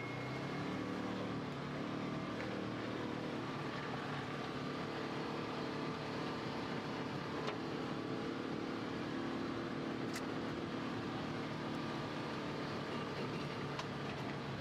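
Polaris Ranger Crew side-by-side's engine running steadily under way, its pitch rising a little a second or two in.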